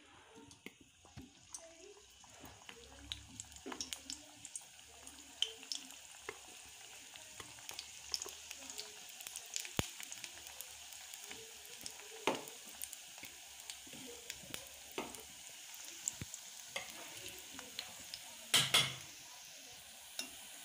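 Besan gatte (gram-flour dumplings) frying in hot oil in a kadhai: a steady sizzle with many small crackling pops, growing as more pieces are laid in. A couple of sharper knocks stand out near the end.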